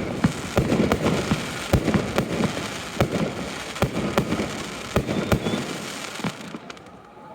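Fireworks display: shells bursting in quick succession with sharp bangs over a steady crackle, thinning out near the end.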